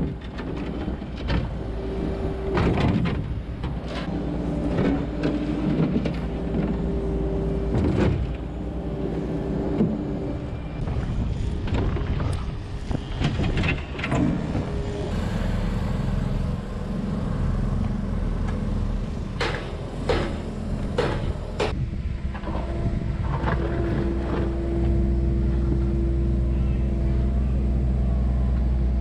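Skid steer loader engine running, with a hydraulic whine that comes and goes while the bucket scrapes and knocks through dirt and rock. About halfway in, a steadier, deeper drone of compact excavator and loader engines takes over as they dig the trench.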